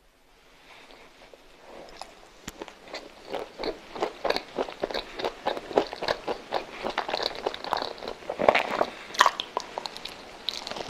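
Close-miked eating of a soft coconut-coated milk custard roll: bites and chewing with many small mouth clicks and smacks. The sound builds up over the first two seconds, then runs on densely, loudest a little past the middle.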